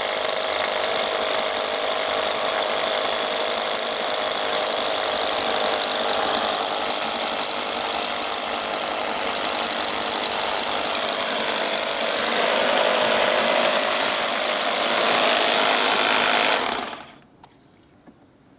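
Rotary hammer drill with a core bit running steadily as it bores through a wall. It grows a little louder about twelve seconds in, then stops suddenly near the end.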